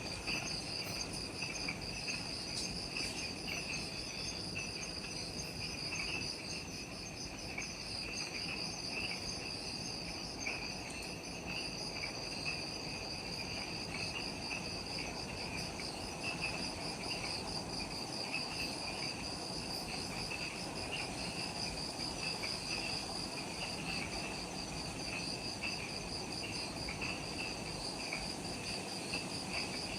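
A steady chorus of insects in subtropical forest at dusk, with fine, rapidly pulsing chirring at two high pitches.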